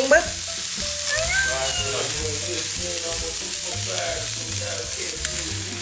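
Food frying in hot oil in a pan, a steady loud sizzle.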